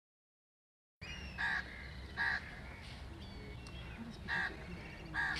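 After a second of silence, crows caw four times, short harsh calls spaced irregularly over a steady low outdoor background, with a few faint chirps of smaller birds.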